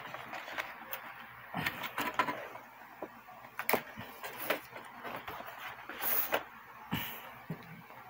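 A paper mailer envelope being opened and handled: irregular rustling, crinkling and soft scrapes and taps as a thick paperback book is slid out.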